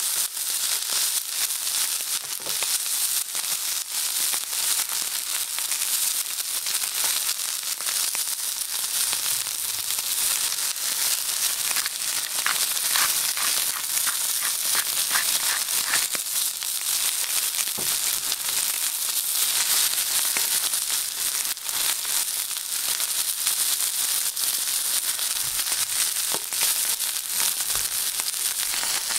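Beef striploin steak searing over high heat in a cast-iron pan: steady sizzling with dense crackling.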